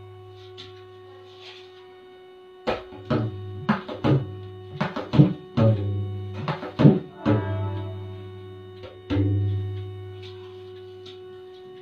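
Bayan, the bass drum of a tabla pair, being struck. A quick run of strokes with a deep booming ring starts a few seconds in, and one last strong stroke rings out about nine seconds in.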